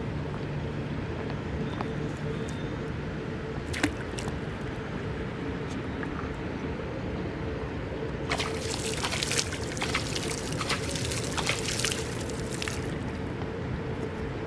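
Water splashing and trickling at the edge of a river, a dense crackly spell of several seconds about halfway through, over a steady low rumble and faint hum. A couple of sharp clicks come earlier.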